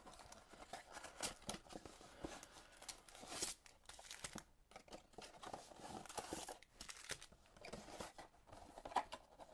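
Faint rustling and crinkling of wrapped trading-card packs and their cardboard box being handled, with the packs set down in stacks.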